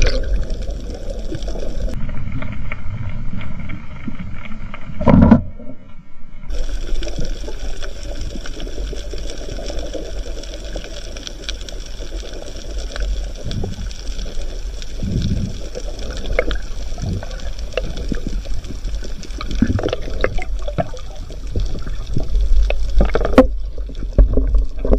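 Underwater water noise heard through an action-camera housing during a night spearfishing dive, a steady wash with scattered small clicks and knocks. The sound changes abruptly twice in the first six seconds or so.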